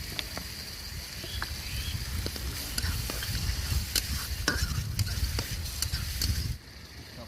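Spice masala paste sizzling in hot oil in a pan while being stirred, the spatula scraping and tapping against the pan. The sound drops away suddenly near the end.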